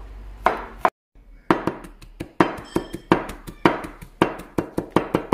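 Kitchen knife mincing garlic on a plastic cutting board: a fast run of sharp knocks of the blade on the board, about four or five a second, breaking off briefly about a second in.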